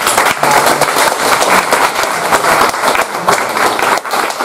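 Audience applauding: many hands clapping steadily at the end of a talk.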